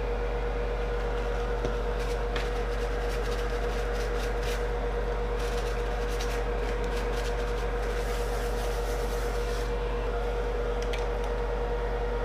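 Steady electrical hum with a constant mid-pitched tone, with a few faint light clicks and taps from small parts being handled.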